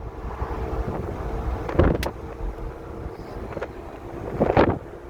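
Small engine running with a steady whine that drops a little in pitch about halfway, with wind buffeting the microphone and two loud gusts about two and four and a half seconds in.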